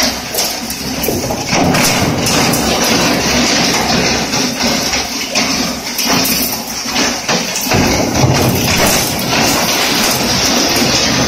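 Stainless-steel bone crusher running, a loud steady machine noise filled with a dense, irregular clatter of knocks.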